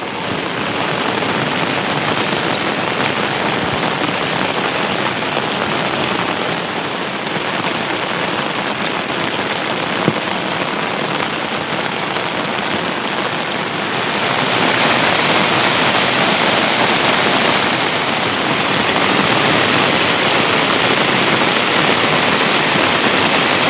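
Heavy rain falling steadily, growing heavier about two-thirds of the way through.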